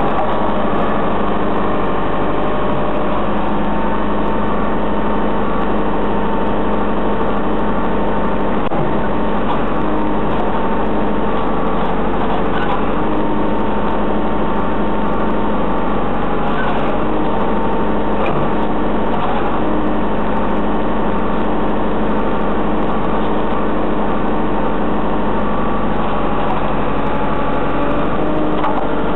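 JCB 3CX Super backhoe loader's diesel engine running at a steady speed.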